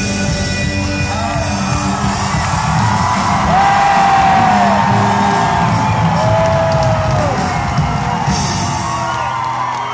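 Indie rock band playing live, recorded from within the audience in a large hall, with voices holding long, arching notes over the band. The low end thins out near the end.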